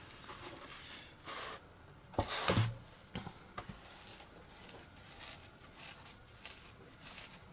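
Paintbrush dabbing and rolling along the wet cloth bandage on a wooden model wing, a run of soft scratchy strokes. A louder knock about two seconds in, then a couple of small clicks.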